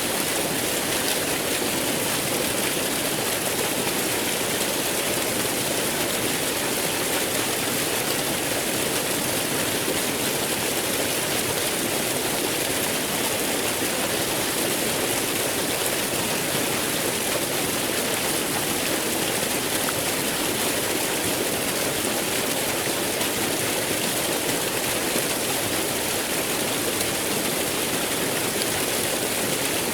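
Waterfall flowing: a steady, unbroken rush of falling water.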